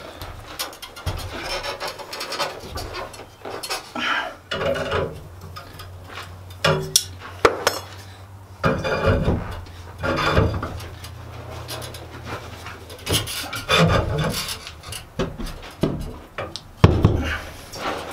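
Hot steel rod being bent into a coil around a bar held in a vise, levered round with a steel tube. The metal scrapes and grates in irregular bursts, with a few brief squeaks.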